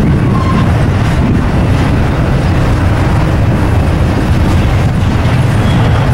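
Manifest freight train rolling past, a steady loud rumble of the cars on the rails, with wind buffeting the microphone.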